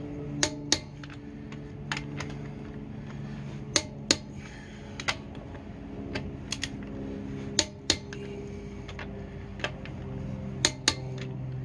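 Sharp metallic clicks of a torque wrench tightening wheel bolts to spec, coming in quick pairs about every three and a half seconds as each bolt is torqued, over a steady low hum.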